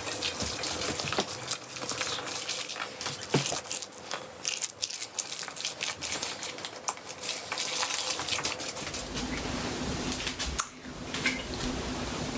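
A spatula stirring guacamole in a stainless steel mixing bowl, with many quick clicks and scrapes against the metal. About nine seconds in the stirring stops and a steady low hum is left.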